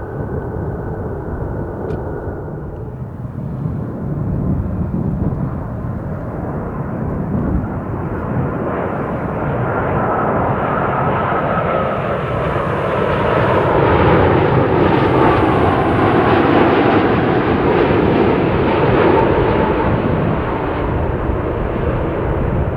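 Boeing 787-10 Dreamliner arriving at close range, its jet engine noise building steadily to a peak about two-thirds of the way through. The engine tones fall in pitch as it passes.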